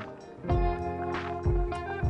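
Background music with a steady beat and held melodic tones.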